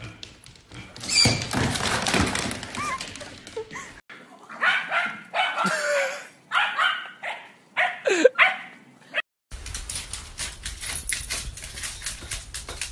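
A dog barking in a series of short barks, with rustling and clicking noises before and after.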